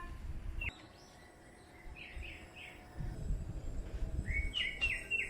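Small birds chirping: a quick run of three notes about two seconds in, and a run of stepped high notes near the end, over a low rumble.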